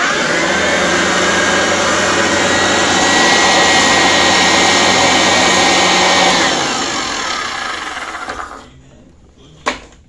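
Sanitaire commercial upright vacuum cleaner switched on with a freshly fitted belt: the motor runs at a steady whine for about six seconds, then is switched off and spins down with falling pitch. A sharp knock near the end.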